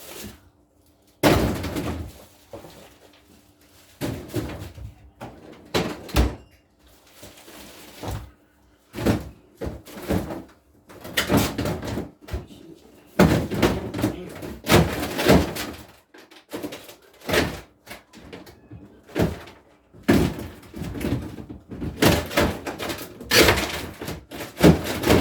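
Repeated thuds, clatters and slams of frozen food packages being tossed into a refrigerator freezer, with the freezer drawer and door being handled. A faint steady hum runs under the first third.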